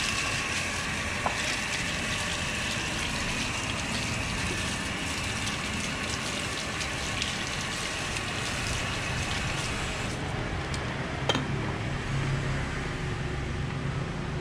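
Water running and splashing from a hose as a ring is rinsed and washed with soap. The rushing thins out about ten seconds in, with a couple of small clicks.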